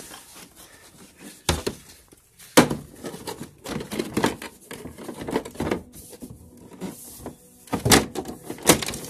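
Hard plastic clacks and knocks as the front grille of a Whirlpool Whispure 510 air purifier is fitted and pressed onto its housing. There is a sharp clack about two and a half seconds in, a run of smaller rattles, and two more clacks near the end.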